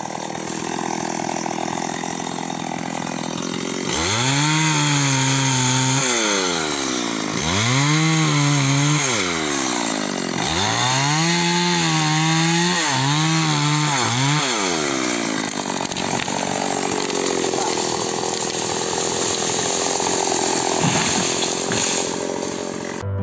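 Two-stroke chainsaw cutting into a rubber tree trunk. It runs steadily at first, then about four seconds in it gets louder and its engine speed climbs and sags four times as the chain bites, then holds a steady high speed before cutting off suddenly near the end.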